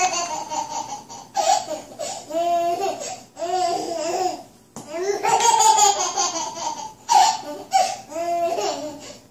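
Baby laughing in a string of short, high-pitched bursts of giggles and squeals.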